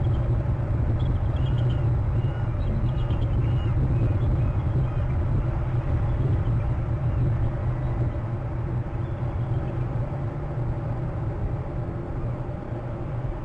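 A steady low rumble, like a vehicle engine running, with faint distant high calls in the first few seconds that fit hounds in cry during a chase.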